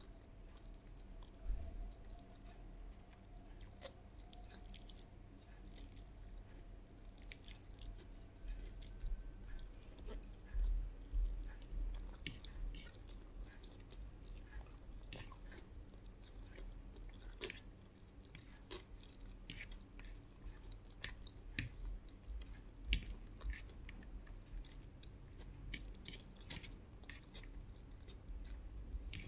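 A person chewing food, with many small irregular clicks and crunches of the mouth.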